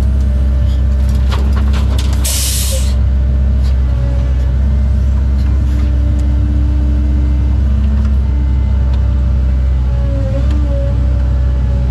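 A CAT 309 compact excavator's diesel engine running steadily, heard from inside the cab, its note shifting slightly as the hydraulics work the boom and bucket. A short sharp hiss comes about two and a half seconds in, with a few clicks just before it.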